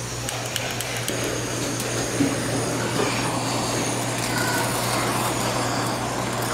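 Handheld gas blowtorch flame hissing steadily as it sears pieces of bluefin tuna in a frying pan, growing slightly louder toward the end. A few clicks sound about a second in.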